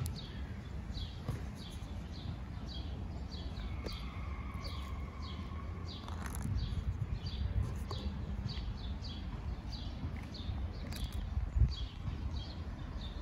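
Small birds chirping over and over, short high calls about two or three a second, over a steady low rumble.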